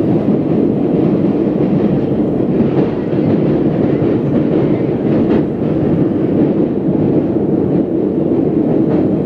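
MBTA Orange Line subway train running at speed through a tunnel: a steady rumble of wheels on rail, with a few faint clicks over rail joints.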